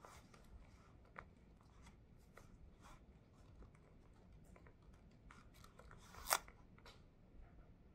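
Quiet, irregular keystrokes on an LG laptop keyboard, with one louder key press about six seconds in.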